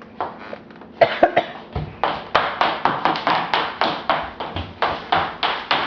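A quick run of sharp smacks, like hands clapping or slapping, a couple about a second in and then a steady series of about four a second.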